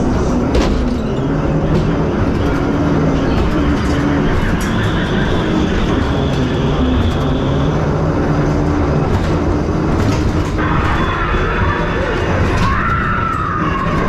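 Ghost train car running along its track with a loud, steady rumble and occasional clicks, under the ride's spooky soundtrack of low notes. About ten and a half seconds in, a higher sound effect with a gliding tone comes in.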